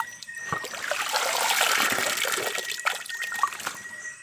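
Shallow river water splashing and sloshing as a hand gropes through it among leaves and stones, feeling for shrimp; busiest in the middle, easing off near the end.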